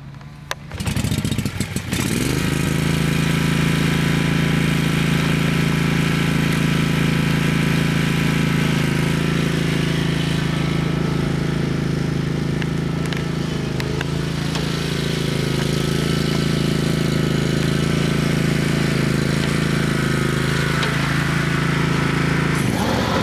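A 2002 Scag zero-turn mower's 17 hp Kawasaki FH500V V-twin engine being pull-started, catching about a second in and then running steadily. Near the end the engine speed dips and rises again.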